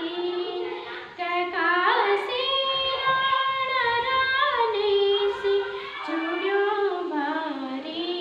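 A schoolgirl singing solo, unaccompanied. She holds long notes that glide from one pitch to the next, with a short breath about a second in.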